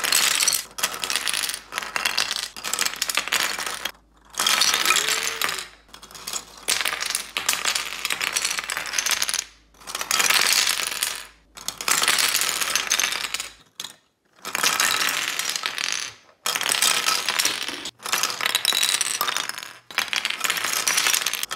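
3D-printed plastic animal game pieces clattering and rattling against each other and the table as stacks topple, in a string of short bursts separated by brief gaps.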